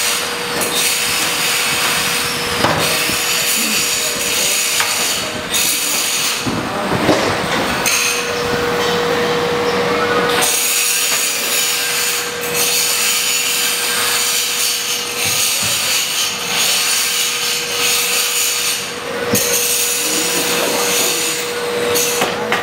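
Steel grill grates and racks being handled in a custom barbecue pit: metal scraping and sliding, with a few sharp clanks, over a steady hum.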